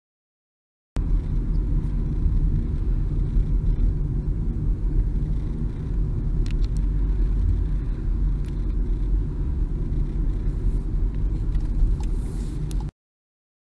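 A helicopter flying low overhead: a steady, loud, low rotor-and-engine rumble. It starts suddenly about a second in and cuts off suddenly near the end.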